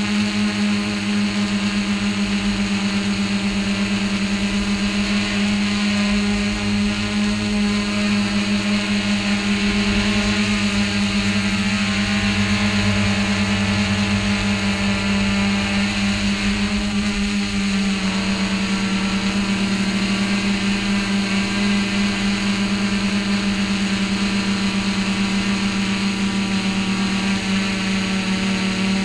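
Multirotor drone's motors and propellers buzzing steadily while it hovers and drifts, the pitch shifting slightly about two-thirds of the way through.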